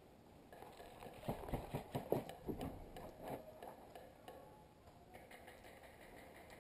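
Faint, irregular clicks and knocks, bunched between about one and three seconds in.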